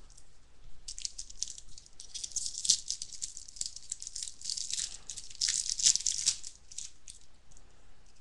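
Crinkling and tearing of a foil trading-card pack wrapper being opened, a dense crackle that swells about a second in and dies away near the end.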